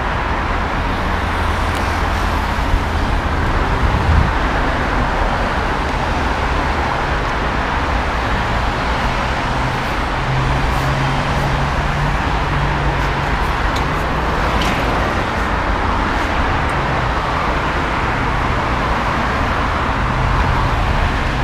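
Steady city road traffic noise, with the low hum of a passing vehicle's engine from about ten seconds in for several seconds.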